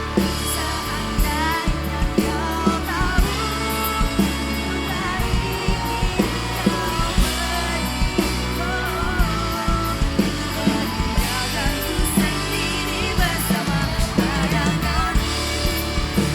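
Live band playing a pop-rock song: drum kit and guitar with a lead voice singing the melody.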